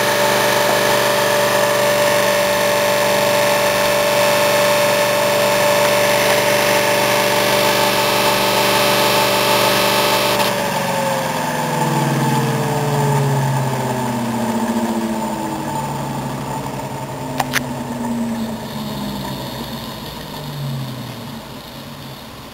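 Homemade iron-core axial flux pulse motor running with a steady electrical whine and hum. About ten seconds in the whine starts falling in pitch and fading as the rotor spins down after its battery supply is cut. A single sharp click comes a few seconds before the end.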